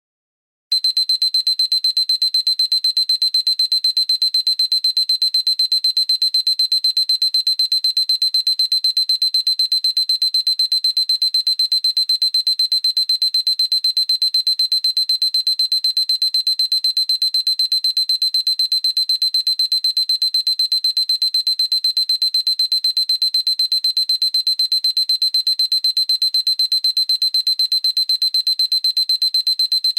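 Digital alarm clock beeping: a high-pitched electronic beep repeated very rapidly and evenly in one continuous train, starting just under a second in.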